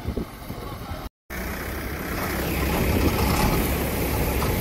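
Farm tractor's diesel engine running steadily, heard from a distance at first, then much closer and louder after a brief cut about a second in.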